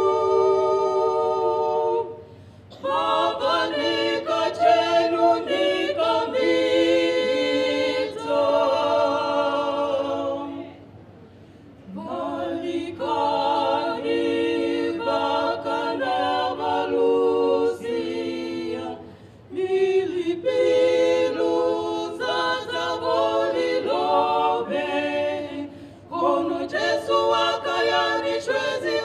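A trio of women singing a gospel song together without instruments, in harmony, through handheld microphones, in long phrases with brief breaks between them.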